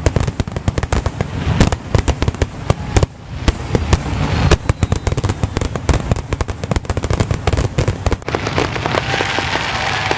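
Fireworks going off in a rapid, irregular crackling run of many small bangs, thinning out near the end.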